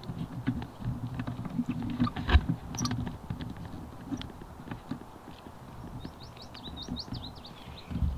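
Mountain bike rolling over a rough trail: tyres crunching on loose stones with a low rumble and many irregular knocks and rattles, the loudest about two seconds in. A short run of high chirps comes near the end.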